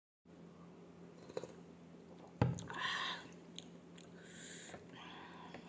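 A person chewing and eating rice by hand, with small wet mouth sounds and one sharp knock about two and a half seconds in.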